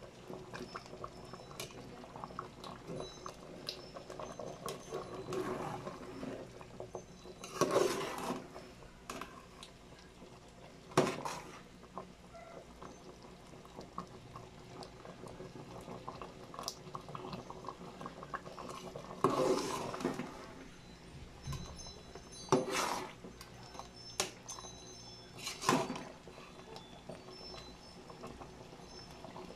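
Saba bananas in sugar syrup bubbling at a boil in a metal pot, a steady fizzing with small pops. Five louder clinks of a utensil against the pot stand out.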